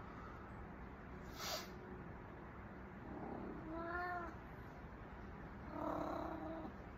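A female cat in heat calling with drawn-out meows, once about three seconds in and again near six seconds.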